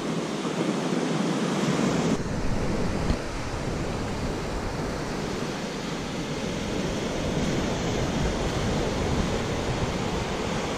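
Ocean surf breaking and washing up the beach, a steady rushing noise, with wind rumbling on the microphone.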